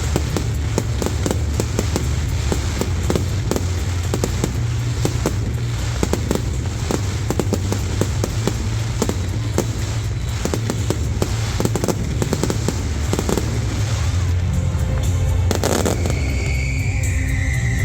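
Fireworks going off in a rapid string of crackles and bangs, with music underneath. About three-quarters of the way through, the bangs thin out and the music is left.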